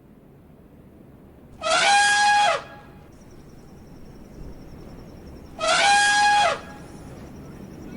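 An elephant trumpeting twice, two brassy calls of about a second each, four seconds apart; each rises, holds and drops in pitch. A faint steady high-pitched whine runs beneath from after the first call.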